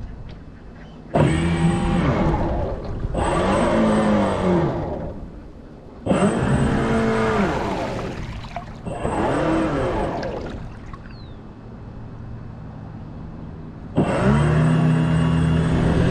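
Radio-controlled model boat's motor throttling up in five sudden bursts, its whine rising and falling in pitch with each burst, with quieter stretches of water and wind noise between them.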